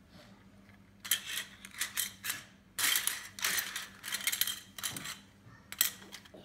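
Hard plastic letter tiles from a word-building game clattering and clicking against each other and the tabletop as they are rummaged through and pushed about, starting about a second in.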